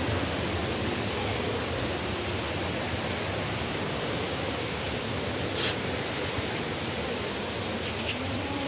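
Steady rushing of a waterfall and river, an even wash of water noise, with a couple of faint clicks about halfway through and near the end.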